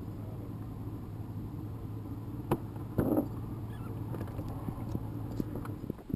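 Handling knocks on a small rigid inflatable boat over a steady low hum: a sharp knock about two and a half seconds in, a short louder thud with a rustle half a second later, then lighter clicks.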